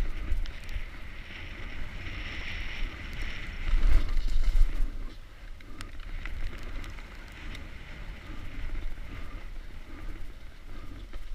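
Mountain bike speeding down a dirt trail, heard from a helmet-mounted camera: wind buffeting the microphone with tyre rumble and scattered sharp clicks and rattles from the bike over bumps, with a louder rush about four seconds in.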